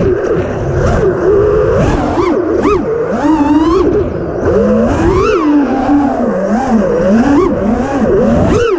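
FPV quadcopter's brushless motors whining, their pitch swooping up and down quickly as the throttle changes, over a rush of air noise.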